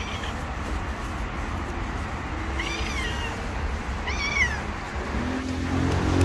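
Hungry stray cat meowing for food: two short, high meows about a second and a half apart, each rising then falling in pitch, with a faint one at the start, over a steady low traffic rumble.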